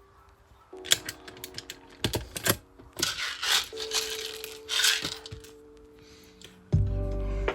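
Background music with held tones, over a run of sharp clicks and rattling of small hard objects; a loud low note comes in near the end.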